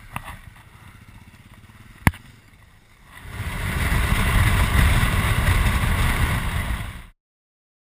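Adventure motorcycle riding along a gravel road: engine and heavy wind buffeting on the bike-mounted camera, loud from about three seconds in and cutting off suddenly near the end. Before that, a low rumble with two sharp knocks.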